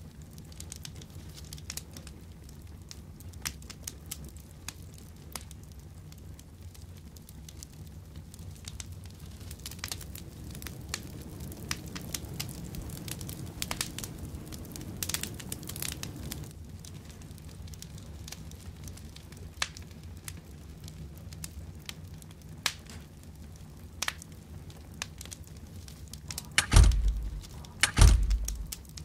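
Scattered crackling and rustling over a low steady hum, with two loud thumps about a second apart near the end.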